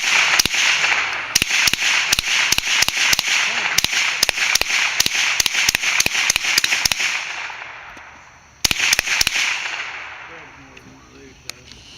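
Rapid handgun fire: a long string of shots, about three a second with echo after each, for some seven seconds. After a short pause, a quick burst of about four more shots.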